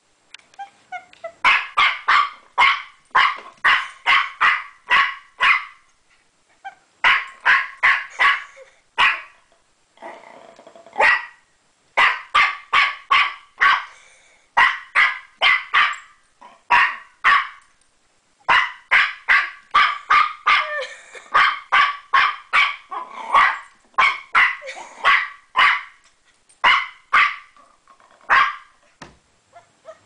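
A small puppy barking at a spring door stopper: sharp, high barks in quick runs of several at a time, with short pauses between the runs.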